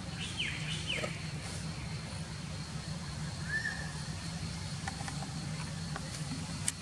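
Outdoor ambience: a steady low hum, with a few brief high falling chirps in the first second, another around the middle, and a single sharp click near the end.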